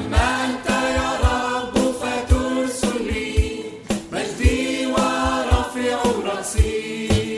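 An Arabic Christian hymn sung over instrumental backing with percussion.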